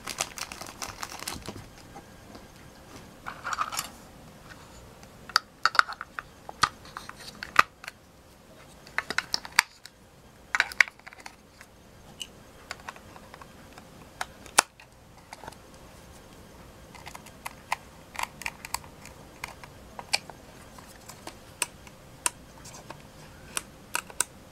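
AA batteries being fitted into the plastic battery compartment of a Playmobil toy bed and the plastic parts handled: irregular sharp clicks and taps, with a denser run of clicks later on.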